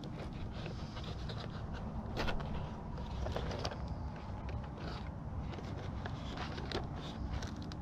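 Scattered scrapes and clicks of hands handling a foam RC airplane's fuselage, over a steady low rumble of wind on the microphone.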